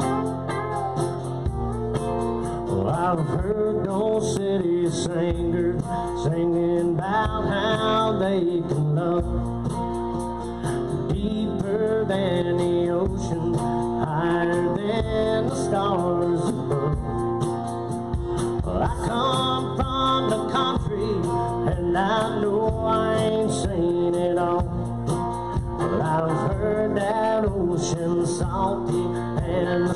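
Live country band playing, with guitar to the fore.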